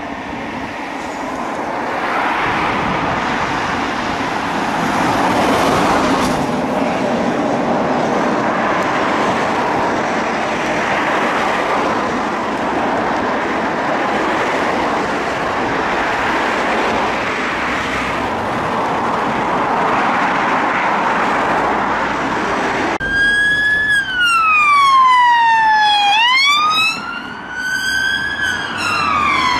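Emergency ambulance siren mixed into steady road traffic noise, the siren's wavering pitch only faintly standing out. About 23 seconds in it changes abruptly to a police car's wail siren, loud and clear, sliding slowly down in pitch, snapping back up, and sliding up and down again.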